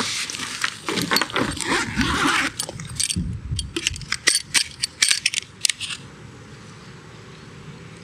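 Camera backpack being handled: a rustle over the first couple of seconds, then a string of sharp clicks and taps as a large telephoto lens is lifted out of the bag, dying away after about six seconds.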